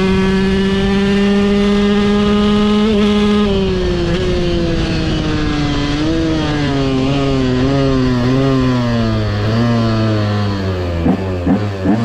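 KTM EXC 125 two-stroke single-cylinder engine with an FMF Shorty silencer, held at high revs for about three and a half seconds. The revs then fall away with small rises and dips as the throttle is eased off.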